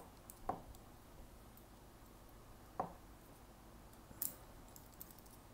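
Allen key of a folding bike multi-tool clicking faintly against a small bolt on a Shimano SPD pedal as the bolt is turned loose: three short metal clicks, about half a second, nearly three and just over four seconds in.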